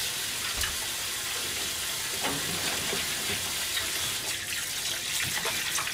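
Kitchen tap running steadily into a stainless-steel sink as a detergent-coated pan is rinsed under it, with a few light clinks of dishes.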